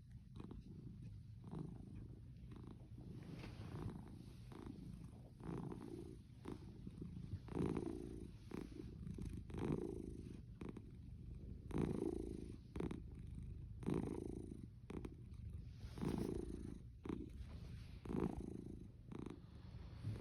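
Cat purring: a low rumble that swells and fades with each breath, about every two seconds.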